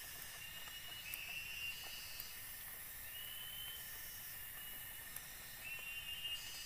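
Tropical forest ambience: insects shrilling steadily at a high pitch, with a ringing call about a second long repeated every two seconds or so.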